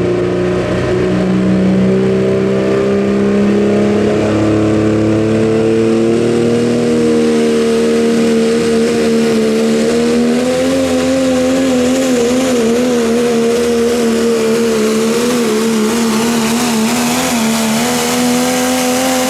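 Super modified four-wheel-drive pulling truck's engine running loud at full throttle during a pull. Its pitch climbs slowly and wavers in the second half, then falls away sharply right at the end as the throttle comes off.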